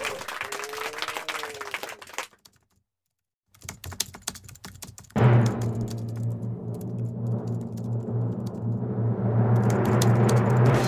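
Computer keyboard typing sound effect: rapid key clicks that stop for about a second and a half a little over two seconds in, then resume. A steady low hum joins the clicks about five seconds in.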